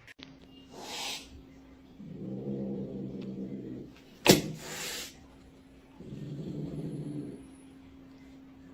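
A cat growling in low, drawn-out stretches, twice, with short breathy bursts between them and one sharp knock about four seconds in.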